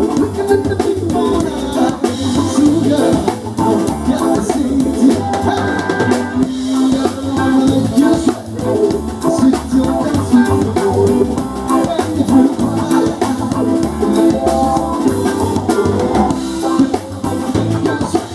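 Loud dance music with a steady drum-kit beat.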